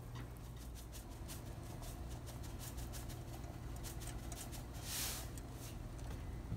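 Pork rib soup simmering in a stainless steel pot, with a steady run of small bubble pops and ticks over a low hum. About five seconds in, a brief hiss as salt is poured into the broth.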